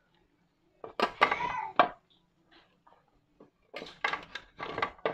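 Metal kitchen tongs clattering and scraping against an aluminium tray and a dish while petai pods are picked up and dropped into boiling water. The clatter comes in two short bursts, about a second in and again near the end.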